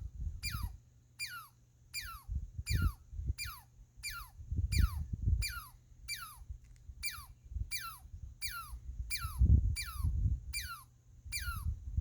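Squirrel calling: a steady series of short chirps, a little under three a second, each sweeping sharply down in pitch like a sci-fi laser blast. Low rumbles of wind or handling noise come and go underneath.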